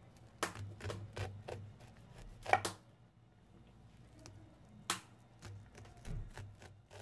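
Knife slicing charred kernels off a grilled corn cob on a wooden cutting board: irregular sharp clicks and taps of the blade and falling kernels, the loudest about two and a half seconds in.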